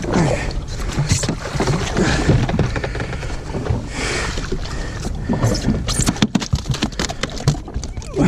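Water sloshing around a jet ski on open sea with wind on the microphone and a low steady rumble. About six to eight seconds in comes a run of sharp clicks and knocks, the sound of handling on the craft.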